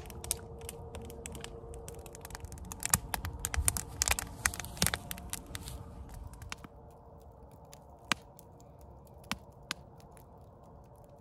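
Log campfire crackling, with frequent sharp pops for the first several seconds that thin out to a few scattered snaps later, over a faint steady hum.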